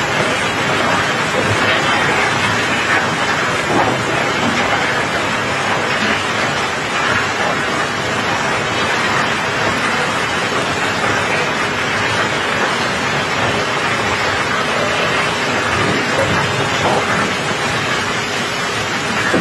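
Steady hiss of rain falling on a wet steel barge deck, with a few faint knocks of cobblestones shifting on the pile.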